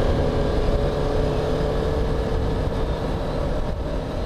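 Yamaha YZF-R3's parallel-twin engine running at a steady cruise while riding, its note drifting slightly lower, with wind and road noise on the bike-mounted microphone.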